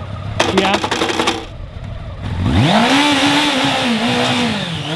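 Custom motorcycle's engine being started: a quick run of rapid clicks in the first second or so, then about halfway through it catches with a sharply rising note and is revved up and down in blips.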